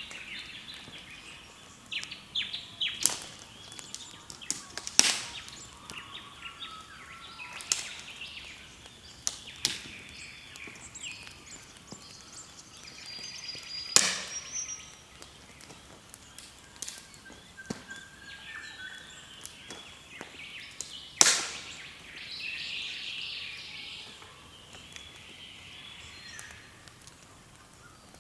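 Several wild birds calling at once: chirps, whistles and chattering overlapping, with about six loud, very short, sharp cracks scattered through.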